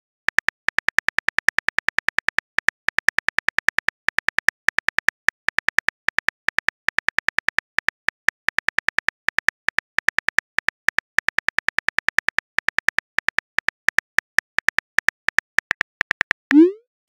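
Simulated phone keyboard typing sounds: a rapid, steady run of short clicks, about six a second, as a text message is typed out. Near the end a short rising whoosh marks the message being sent.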